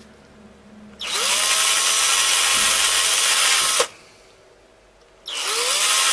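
Electric drill with a thin bit boring small holes through a plastic carp feeder, run in two bursts: it starts about a second in, spinning up with a rising whine, runs about three seconds and stops, then starts again the same way near the end. The holes go through quickly.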